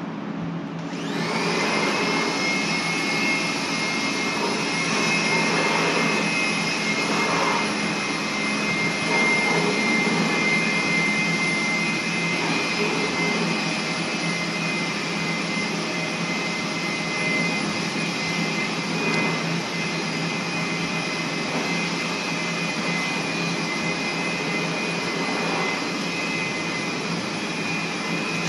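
A motor-driven machine spins up about a second in and then runs steadily: an even rushing noise with a high, steady whine over it.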